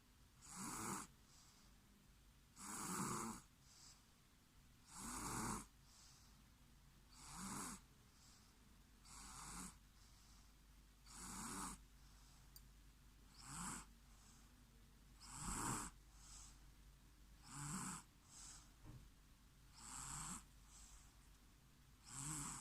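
A person snoring faintly in a slow, even rhythm, one snore about every two seconds.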